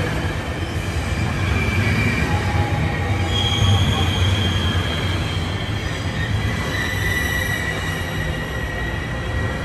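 Intercity passenger coaches rolling slowly along the platform. Their wheels squeal in thin high tones that come and go over a steady low rumble.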